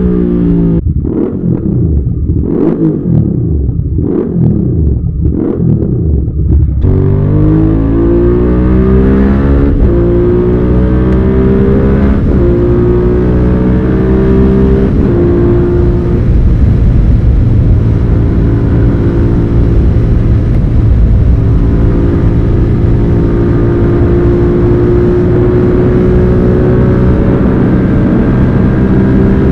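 Suzuki SV650's V-twin engine revving, its revs climbing and dropping about five times in quick succession over the first seven seconds. It then runs on steadily, with the pitch drifting slowly up and down.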